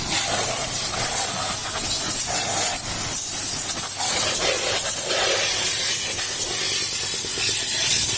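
Pressure-washer jet spraying steadily with an even hiss during a motorcycle wash.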